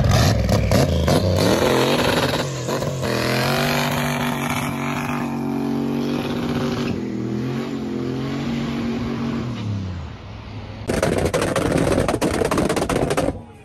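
Tuned performance car's engine and exhaust under hard acceleration: the engine note climbs, holds, then falls away at about ten seconds. A loud, harsh crackling stretch follows from about eleven seconds until just before the end.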